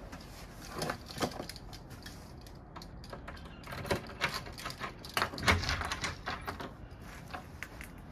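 A run of small clicks and rattles from a bunch of keys and a key turning in a front-door lock, then the latch and the door opening, with the loudest knock about halfway through.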